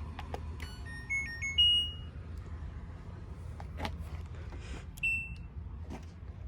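Washing machine control panel beeping as it is powered and set: a short chime of several electronic tones about a second in, then a single short beep about five seconds in, over a steady low hum.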